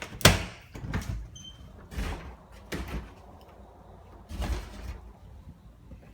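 A back door being worked open and shut, scraping and bumping about five times in a few seconds where it sticks on the linoleum floor.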